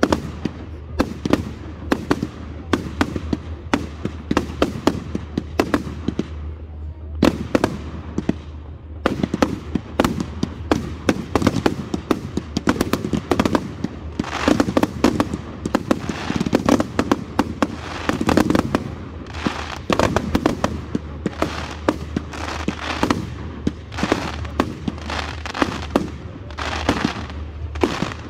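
Fireworks display: a fast run of bangs and crackling bursts from aerial shells, sparser at first, then thickening into a near-continuous barrage after a sharp bang about seven seconds in.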